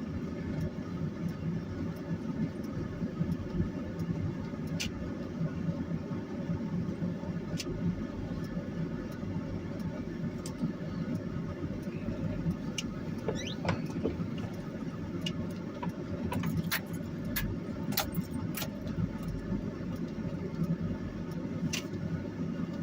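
Steady rumble of a car being driven on a snowy, icy road, heard from inside the cabin, with scattered light clicks and ticks.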